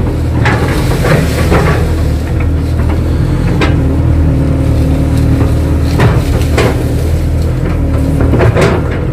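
Kato crawler excavator's diesel engine running steadily, with a few short knocks about three and a half, six and eight and a half seconds in.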